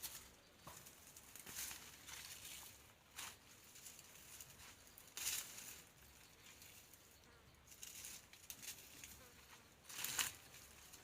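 Faint, intermittent rustling and crackling of dry weeds and brush being handled, with short louder scratchy rustles about a second and a half in, around five seconds in, and again near the end.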